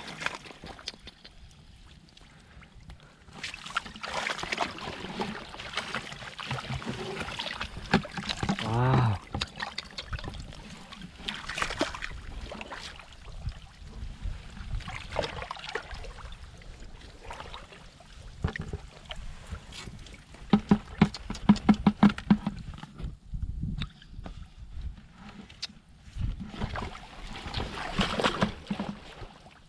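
A woven bamboo basket is dipped into shallow, weedy muddy water and lifted out. Water sloshes and trickles through the weave, with scattered splashes. A little past two-thirds in, a quick run of rapid knocks is the loudest moment.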